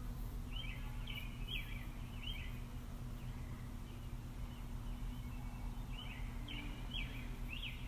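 A bird chirping in two short runs of about four quick calls each, over a steady low hum.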